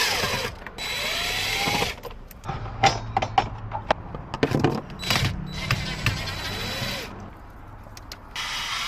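Handheld power drill running in several short bursts, each about a second long with a steady high whine, with clicks and knocks of handling between them, as the ignition lock is taken apart.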